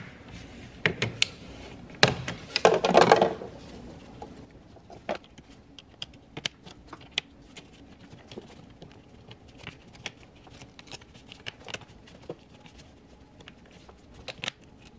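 Gloved hands tucking a wire into a plastic bracket along the engine-bay cowl: scattered clicks and taps of plastic, with a louder bout of rustling and scraping about two to three seconds in, then lighter ticks.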